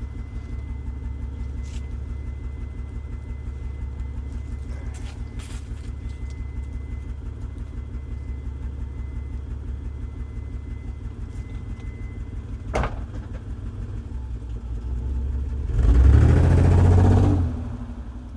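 1995 Mitsubishi 3000GT's V6 exhaust idling with a fluttering, pulsing note, the rough running that the owner suspects is a misfire despite no check-engine light. A single sharp click comes about two-thirds of the way in, and near the end the engine is revved briefly and drops back to idle.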